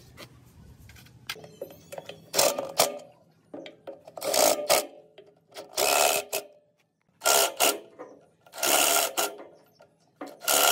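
Repeated scraping strokes of hand work on a workpiece: about six strokes, each about half a second long, coming roughly every second and a half after a quiet start.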